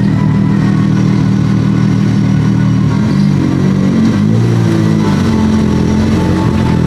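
Honda Civic Type R engine running at low revs, steady at first, then rising and falling in pitch with light blips of throttle from about three seconds in.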